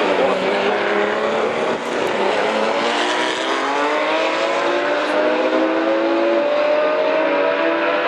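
Ferrari 512 BB LM's 4.9-litre flat-12 racing engine under power, with a short dip in the sound about two seconds in. It then accelerates hard, its pitch climbing steadily through the rest.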